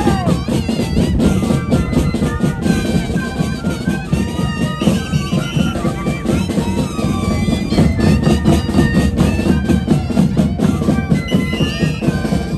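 Moseñada dance music: wind instruments play a stepping melody in unison over a steady bass drum beat.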